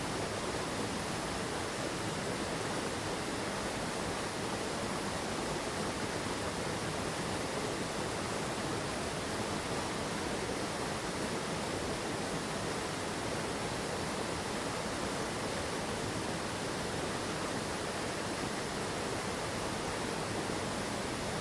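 Rushing water of a mountain stream, a steady, unbroken rush with no other sound standing out.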